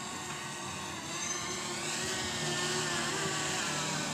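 FIMI X8 Mini drone's propellers whirring steadily, growing a little louder about a second in, as the drone comes down to be caught by hand.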